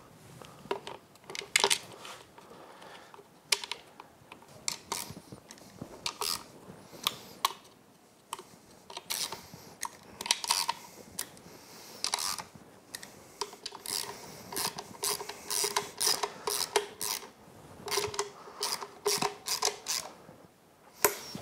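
Hand ratchet clicking in quick runs, with small metallic clinks, as the bolts holding the ignition coil packs on a Yamaha F225 outboard powerhead are driven down.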